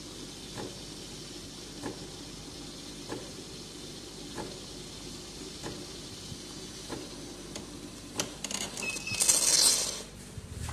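Otten 708 automatic espresso machine frothing milk: steady steam hiss and machine hum as milk is drawn up the tube and steamed into a steel pitcher, with a soft tick about every second and a quarter. About nine seconds in the hissing swells into a louder rush for roughly a second.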